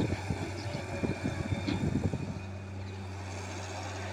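Fiat-Hitachi wheeled excavator working, its diesel engine running steadily while a bucketload of sand is dumped into a truck: a sharp knock at the start and rough irregular thuds and rattling for the first two seconds or so, then only the steady engine.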